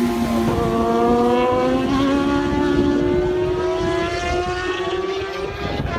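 Racing motorcycles accelerating hard out of a corner, their engine note climbing steadily in pitch as they pull away, with more than one bike heard.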